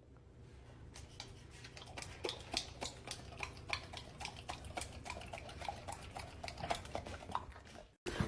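Irregular light clicks and clinks, several a second, over a faint steady low hum.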